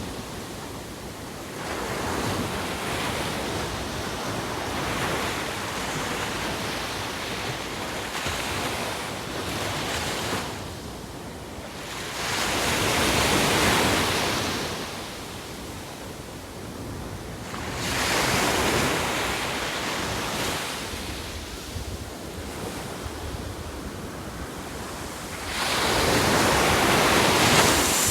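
Sea waves washing onto the shore, a steady noisy wash that swells into louder surges several times as waves break, with wind rumbling on the microphone.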